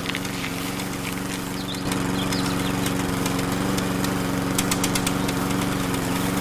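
A small engine running steadily at an even speed, getting louder about two seconds in.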